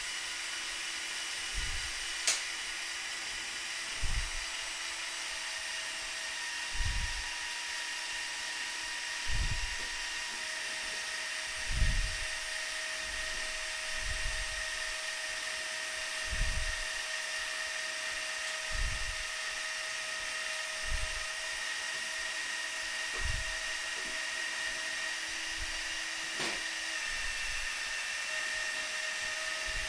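Small electric motors and gearing of a remote-controlled Mould King 17007 brick-built mobile crane running, a steady high whine made of several tones that change as motors start and stop while the boom lowers and the outrigger arms fold in. A low thump comes about every two and a half seconds, and there is a sharp click about two seconds in and another near the end.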